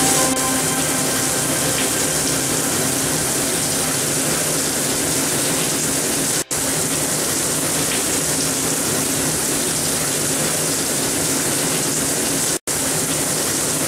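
Steady rushing of water, as from a running tap or aerated water in a tub. It cuts out for a moment twice, about halfway through and near the end.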